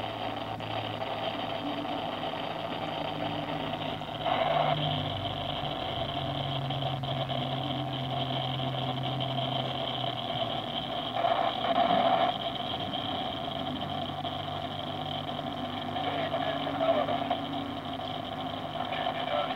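Freight train cars rolling past a grade crossing, steel wheels rumbling and clattering on the rail, louder in swells about four, eleven and seventeen seconds in. Over it runs a steady ringing, likely from the crossing signal.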